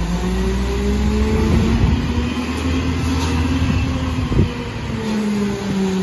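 Rear-loader garbage truck's engine revved up and held at a high steady speed as the packer is cycled, easing back down about five seconds in. A single metallic knock about four seconds in.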